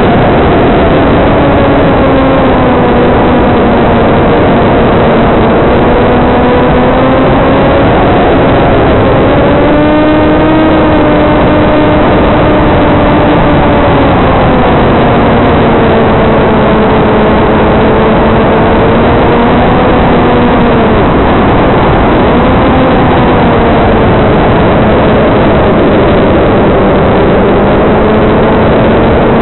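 The electric pusher motor and propeller of a TBS Caipirinha II flying wing in flight, with heavy wind rush. A steady buzzing tone slowly rises and falls with the throttle, climbing briefly about ten seconds in.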